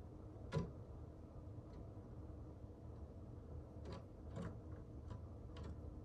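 Irregular sharp taps and clicks of birds' beaks and feet on a bird feeder, with one louder tap about half a second in and a quick cluster of lighter ones in the second half, over a low steady hum.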